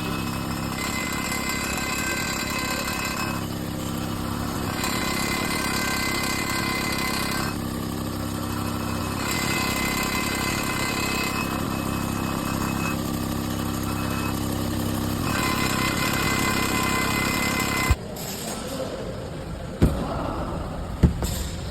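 Vehicle engine running, its note changing in blocks every few seconds, then cut off abruptly about 18 seconds in, followed by two sharp knocks.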